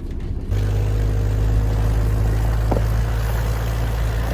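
A four-wheel drive's engine running steadily under way, a low drone with road and wind noise, starting abruptly about half a second in.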